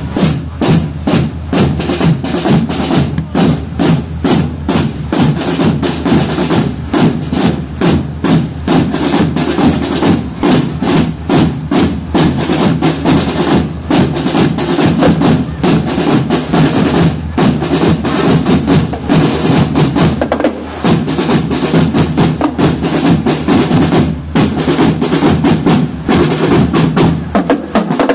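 Marching band drum line playing a fast cadence on snare drums and multi-tenor drums with bass drum underneath, starting abruptly.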